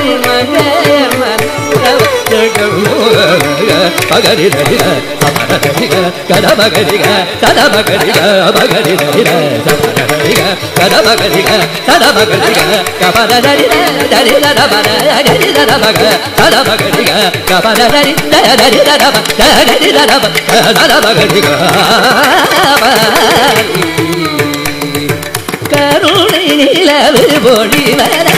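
Carnatic classical music in raga Mohanam, Adi talam: a male voice sings a gliding, ornamented melody over a rapid, steady rhythm of mridangam strokes.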